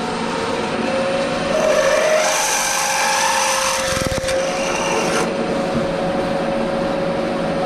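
Milling machine spindle running with a twist drill cutting into a metal plate, a steady motor whine under it and a harsher cutting sound from about two to five seconds in: the hole is being opened out to 9 mm after an 8 mm drill was used by mistake.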